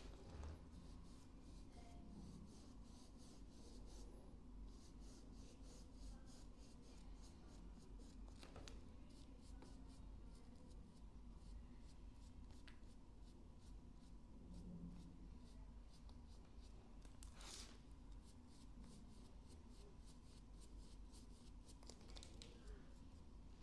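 Near silence, with faint, quick strokes of a paintbrush working paint into a leather pouch, a soft scratchy brushing, and a few light clicks.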